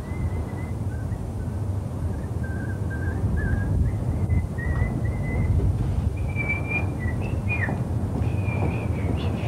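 A person whistling a tune in held notes, over a steady low rumble.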